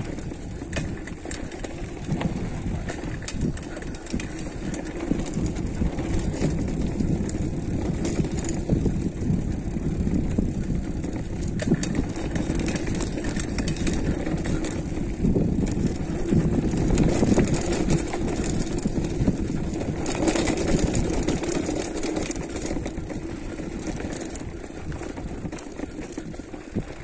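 Mountain bike rolling downhill over a dirt trail: a steady rush of tyre and wind noise with many small rattles and knocks from the bike over bumps, louder for a few seconds past the middle.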